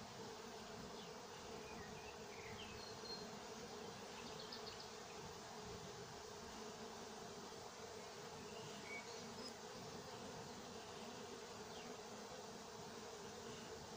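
Many honeybees buzzing at a hive entrance: a steady, even hum of working bees.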